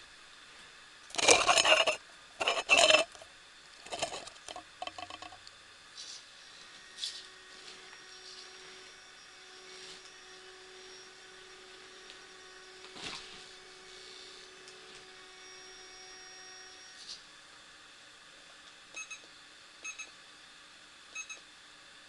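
RC rock crawler running over an indoor obstacle course: loud clattering knocks about a second and three seconds in, smaller knocks after, and a faint steady motor whine through the middle. Three short beeps come near the end.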